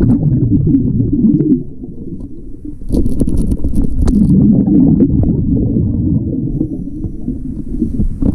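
A diver's breathing regulator underwater, exhaled air bubbling out past the camera as a low rumble in two long surges, the first ending about a second and a half in and the second rising about three seconds in.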